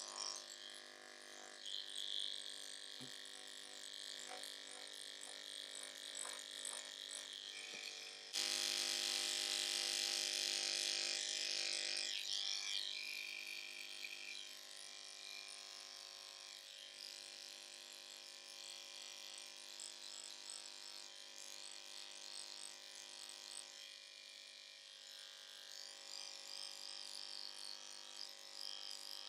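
Electric pet clipper running with a steady hum as it is worked through a Persian cat's long coat. About eight seconds in it suddenly turns louder and harsher for about four seconds, then settles back to the steady hum.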